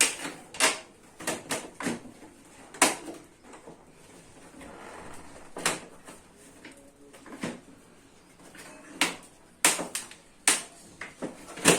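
Irregular plastic clicks and knocks from a split AC indoor unit as its air filters are unclipped and pulled out.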